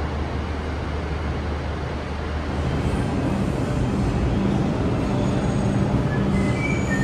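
Subway train rumbling through the station nearby, a steady low rumble that grows louder about two and a half seconds in.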